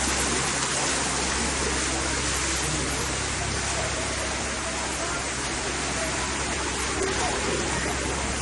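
Steady rushing of floodwater, with a low hum underneath.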